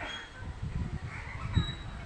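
Birds chirping, with short whistled notes and quick pitch glides, over an uneven low rumble.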